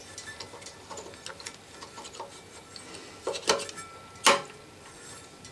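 Metal sash chain clinking and ticking in the fingers as it is fed through a pulley, a few light clicks with the sharpest a little after four seconds in.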